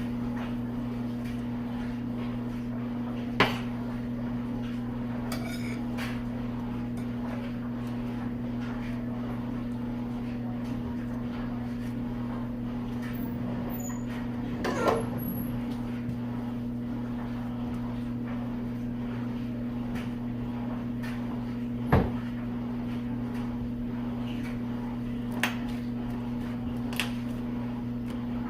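A steady low hum with a few separate sharp knocks and clatters of objects being handled, the loudest near the start and about two-thirds of the way through.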